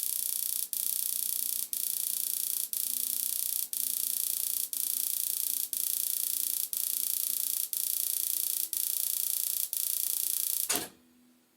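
Spark igniter of a boiler's intermittent pilot arcing, a rapid high-pitched crackling in runs of about a second with a short break between each, stopping suddenly near the end. The pilot has not lit yet, as air is still being cleared from the gas line.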